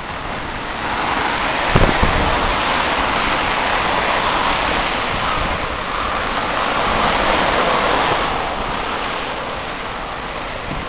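Wind rushing over the microphone of a moving bicycle, a steady noise that grows louder through the middle and eases near the end, with a brief knock about two seconds in.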